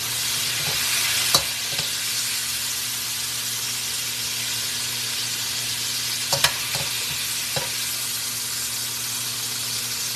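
Pork strips sizzling in hot oil in a wok. Metal tongs click sharply against the pan a few times as pieces are lifted out, about a second in and again around six seconds in.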